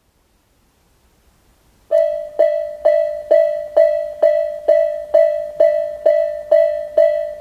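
Japanese railway level-crossing alarm bell, the electronic Tobu type A sound, starting about two seconds in and striking a ringing, fading ding about twice a second: the crossing warning of an approaching train.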